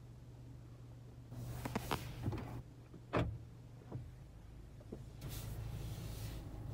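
Inside a car cabin: a steady low hum with rustling and several clicks, one sharp click about three seconds in. From about five seconds a steady rushing hiss takes over.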